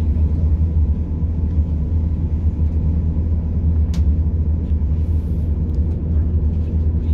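Steady low drone and rumble from inside a British Rail Class 170 Turbostar diesel multiple unit running between stations, with one sharp click about four seconds in.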